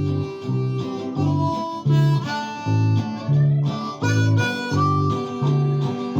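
Acoustic guitar strummed in a steady rhythm, with a harmonica playing the melody over it, as the instrumental intro of the song before the vocals come in.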